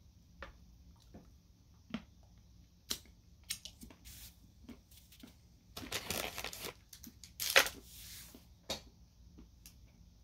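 Quiet chewing and mouth sounds from eating a piece of dark chocolate bark close to the microphone: scattered soft clicks, with two brief rustling bursts past the middle.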